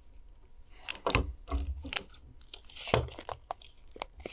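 Colour craft wire being handled and measured: a run of clicks, taps and short scraping rustles, loudest about a second in and again about three seconds in.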